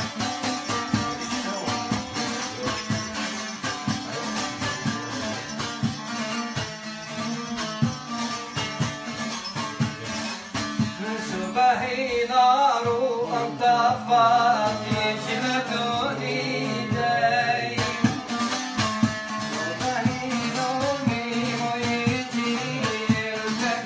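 Bağlama (long-necked saz) being played, a plucked folk melody with a steady rhythm. A man's voice sings a wavering melodic line over it from about halfway through, for several seconds.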